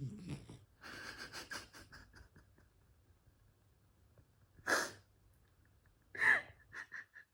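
Ragdoll cat snoring: a rattling, fluttering breath about a second in, then two short, sharp snorting breaths, one around the middle and one near the end followed by a few quick clicks.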